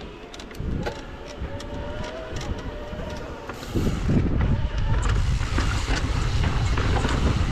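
Mountain bike rolling down a dirt singletrack: tyre and drivetrain noise, with a steady buzz and small clicks over the first few seconds. From about four seconds in, as the bike picks up speed onto the sandstone, a louder low rush of wind on the microphone takes over.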